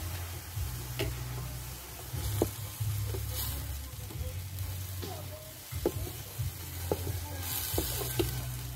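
Crab meat sizzling as it fries in a pan, stirred and scraped with a wooden spatula that knocks against the pan every second or so, under a low rumble that comes and goes.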